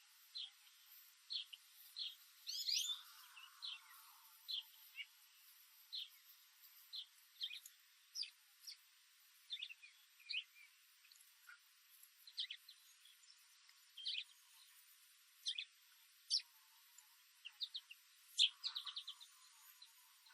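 Wild songbirds chirping: short, high chirps come irregularly every second or so. A quick run of rapid notes follows near the end.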